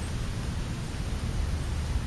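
Steady hiss with a low, fluttering rumble: wind buffeting the microphone. No bird calls stand out.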